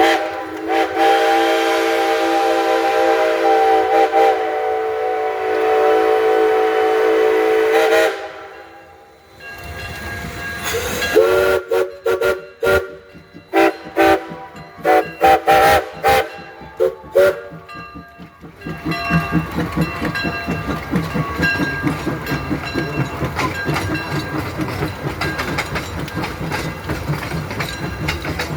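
Steam locomotive whistle: one long chime blast of about eight seconds, then after a brief pause a quick run of short toots. The train then runs with a steady rhythmic clatter.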